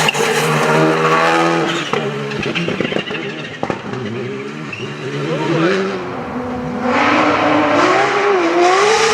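Rally car engine driven hard: the revs climb, drop sharply at a gear change, then rise and fall unevenly, with occasional sharp cracks.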